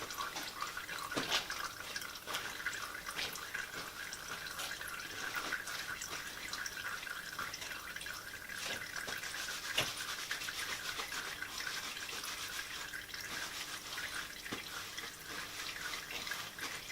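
Warm engine oil draining from the open sump drain hole into a drain pan: a steady trickling, splashing pour, with a few light knocks.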